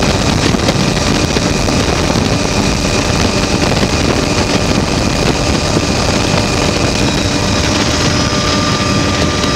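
Helicopter rotor and engine noise with wind buffeting the microphone through the open doorway. It is loud and steady throughout, with a faint steady whine that shows a little more clearly near the end.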